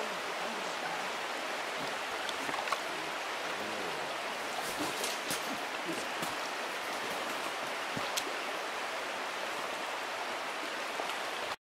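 Steady rush of water over a shallow, rocky river riffle, with a few faint sharp splashes partway through.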